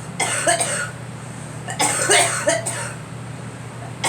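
A girl coughing in two bouts: a pair of coughs just after the start, then a quick run of three or four coughs about two seconds in.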